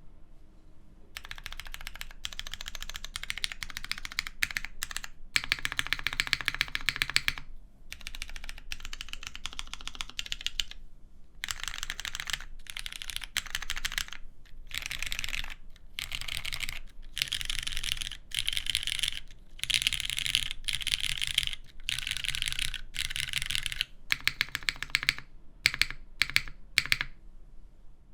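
Typing on a mechanical keyboard: lubed Cherry MX Brown tactile switches, soldered to the PCB and mounted on a polypropylene plate in a Merisi Sessantacinque, under GMK keycaps. Fast runs of keystrokes come in bursts with short pauses between them, ending in a few separate single strokes.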